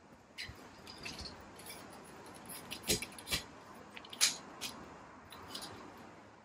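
Steel frame of a MasterCanopy pop-up gazebo being raised leg by leg: a string of sharp metallic clicks and knocks as the telescoping leg slides up and its push-button latch snaps into a height setting, the loudest about four seconds in.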